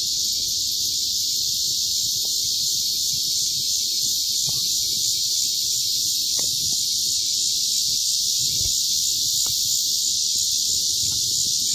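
Insect chorus buzzing steadily in a continuous high-pitched drone, with faint low rumble underneath.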